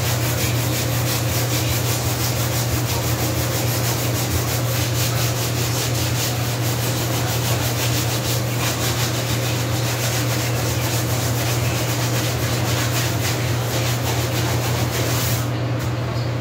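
Hand scrubbing of a kitchen floor with a rag or sponge: rapid, even back-and-forth rubbing strokes, which stop near the end, over a steady low hum.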